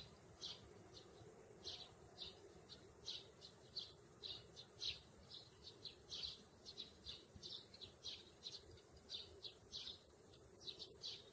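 Male house sparrow chirping over and over, short single chirps a few a second, with a faint steady hum underneath.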